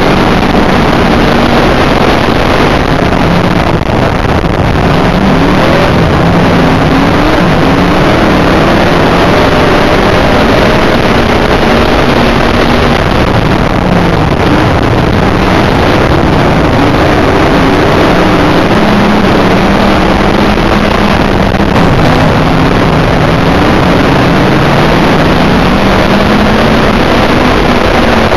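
In-car sound of an IMCA dirt modified's V8 engine running hard, its pitch rising and falling again and again as the throttle comes on and off, over heavy wind and road noise. Very loud throughout.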